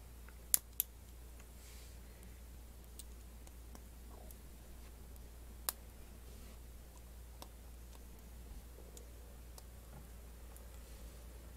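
Plastic LEGO Technic pins snapping into liftarm holes as they are pushed in by hand: two sharp clicks close together about half a second in, another just before six seconds, and fainter clicks of handling the parts between, over a steady low hum.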